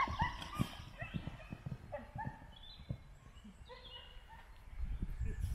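Dull hoofbeats of a horse cantering on arena sand, thickest in the first second or so, with short high pitched calls scattered over them.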